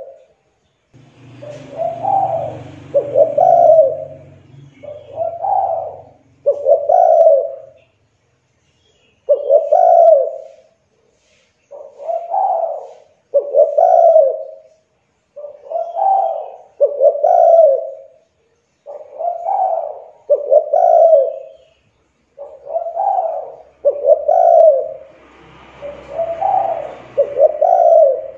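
Spotted dove (tekukur) cooing over and over, in short phrases of low coos, mostly paired, with brief pauses between phrases.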